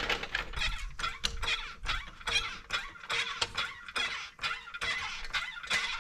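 Hydraulic floor jack being pumped by its long handle to raise the front of a quad bike, giving a quick, irregular run of clicks and clacks.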